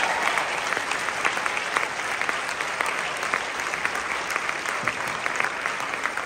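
Audience applauding, dense clapping that slowly tapers off.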